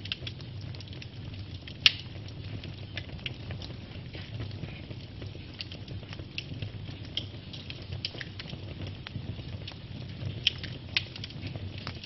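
Wood logs burning in an open fire, crackling with scattered sharp pops over a low steady rumble; the loudest pop comes about two seconds in, with two more near the end.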